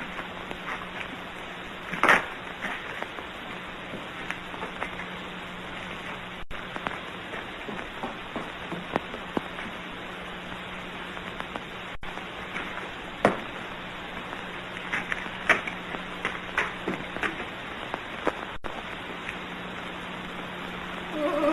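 Old film soundtrack hiss with a steady low hum and scattered sharp pops and crackles, the loudest about 2 seconds in and again about 13 seconds in.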